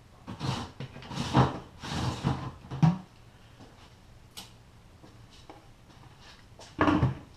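Small carburetor parts being handled on a workbench: a quick cluster of knocks and scrapes, then one more brief knock about seven seconds in.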